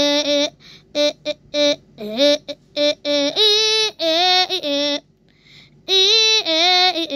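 A high, child-like cartoon voice singing a short wordless tune from a children's app, played through a device speaker: a few quick short notes, then longer held notes with a slight waver, the phrase coming round again.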